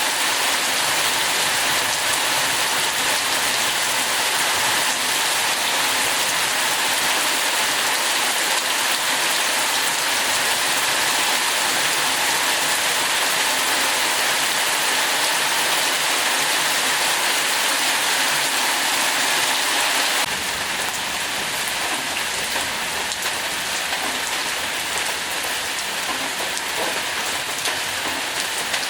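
Heavy rain falling steadily, an even hiss of drops; about twenty seconds in it becomes slightly quieter, with more low rumble.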